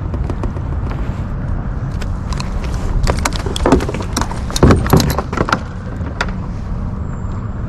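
Wind rumbling on the microphone, with a run of sharp metal clicks and knocks from about three to five and a half seconds in as pliers work the hook out of a small tautog.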